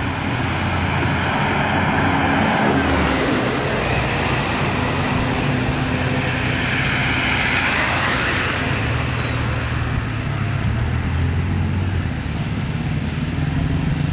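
Slow-moving road vehicles, a pickup truck, a car and a motorcycle among them, with their engines running at low speed. The sound swells as a vehicle passes close about halfway through.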